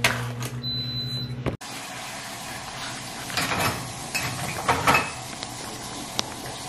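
A microwave oven running with a steady hum and one high beep about a second in. After a sudden cut, a plastic ready-rice pouch crinkles and rustles as it is squeezed and emptied into a bowl.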